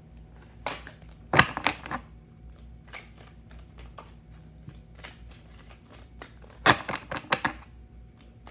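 A deck of tarot cards shuffled by hand: two flurries of cards slapping and riffling together, about a second in and again about seven seconds in, with light card ticks between.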